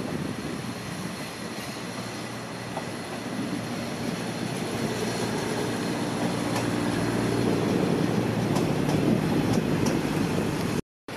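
Thai diesel railcar set passing close below, its engine running with a low rumble that grows louder as the cars go by, and wheels clicking sharply over rail joints and points in the second half. The sound cuts off abruptly near the end.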